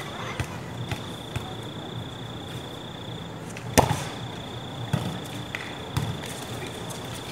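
A volleyball being hit and bouncing on the court: one sharp smack a little past halfway, then two softer thumps about a second apart, over a steady thin high-pitched tone.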